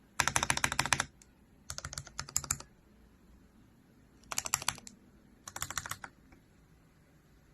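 Typing on a mechanical keyboard fitted with Gateron Pro Milky Yellow linear switches. There are four quick bursts of rapid keystrokes, each under a second long, with short pauses between them.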